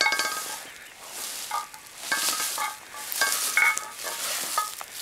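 A heavy 90-pound weight dragged along the ground in repeated pulls, scraping and grating with each tug, with brief squeals.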